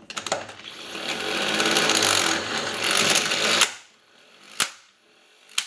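Wagan 2257 12-volt electric impact wrench hammering at a car's lug nut to loosen it: a rapid, fast-pulsing rattle that builds in loudness for about three and a half seconds, then stops abruptly. Two sharp single clicks follow near the end.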